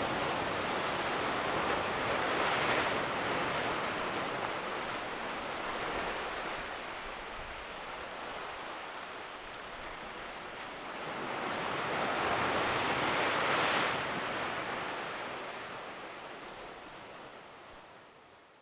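Ocean surf surging and churning against the rocky shore. It swells twice, about two seconds in and again about twelve seconds in, then fades away near the end.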